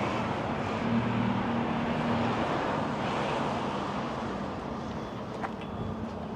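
Street traffic: a motor vehicle's low engine hum that fades away after the first couple of seconds, over a steady wash of road noise, with one brief click about five and a half seconds in.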